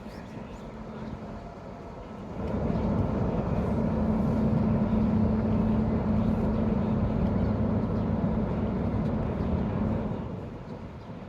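Ferry's engines running with a low rumble and a steady hum. It grows louder about two seconds in and eases off near the end.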